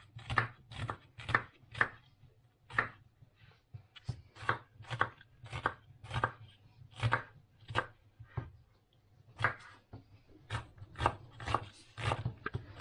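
Kitchen knife dicing an onion on a cutting board: a long run of sharp single chops at an uneven pace of about two a second, broken by brief pauses.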